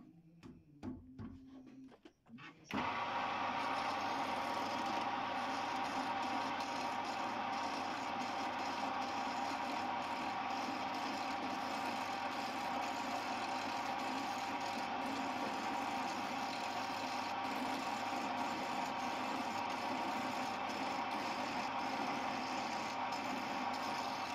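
A few clicks and knocks, then a homemade wood lathe's motor switches on almost three seconds in and runs steadily, a constant whine, while a hand chisel turns a spinning wooden file handle.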